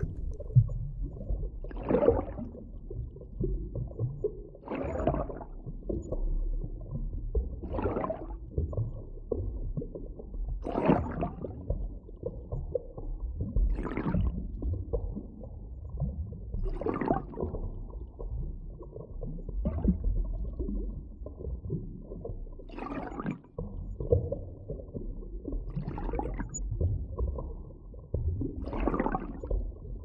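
Underwater ambience: a steady low rumble of water, with a brief swelling rush about every three seconds.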